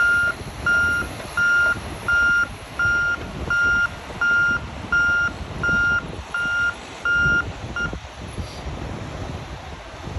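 Bulldozer's backup alarm beeping in an even rhythm, about three beeps every two seconds, over a low rumble; the beeping stops about eight seconds in.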